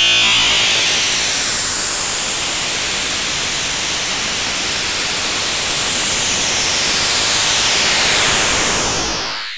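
Tinnitus-masking noise: a steady, full-range hiss with slow whooshing sweeps in its high end, fading away over the last second.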